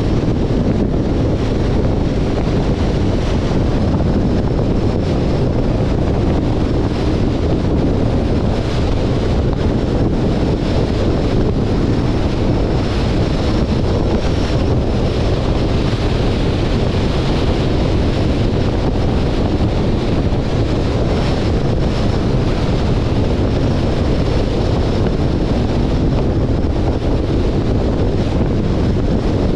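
Steady wind rush and road noise from a 2021 Jeep Compass driving at speed, with wind buffeting the microphone.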